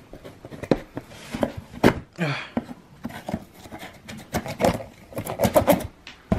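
A serrated knife scraping and sawing through packing tape on a cardboard box, with the tape crackling and the cardboard rustling and knocking in a rapid run of short, sharp sounds, busiest about two thirds of the way in.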